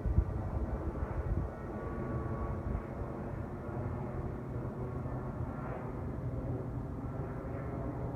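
Jet airliner engines rumbling steadily as the plane passes, with a few faint tones in the noise. Wind buffets the microphone in the first second or so.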